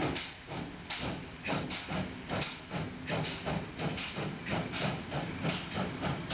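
Pt47 steam locomotive pulling away, its exhaust chuffing from the chimney in sharp hissing beats that come faster and faster, reaching about three a second.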